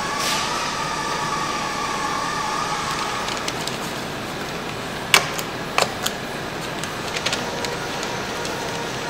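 Steady hiss and hum of a car-factory paint-shop hall, with a wavering machine whine for the first few seconds that then fades. Several sharp clicks and knocks come around the middle.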